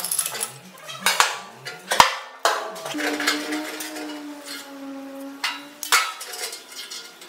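Metal clanks, knocks and rattles as tools and parts are handled on the bare sheet-steel floor pan of an old truck cab. A steady pitched tone runs underneath from about three to six seconds in.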